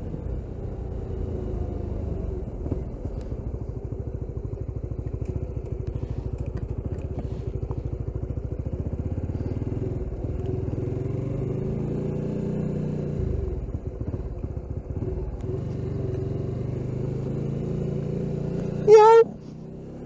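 Honda GTR150's single-cylinder engine running under way. Its revs dip and pick up again about two-thirds of the way through. Near the end comes a short, loud tone, after which the engine goes quieter, off the throttle.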